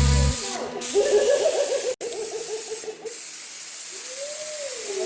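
Paint spray gun hissing steadily as the first coat of paint goes on the car. The hiss breaks off briefly three times, sharpest about two seconds in, as the trigger is let go.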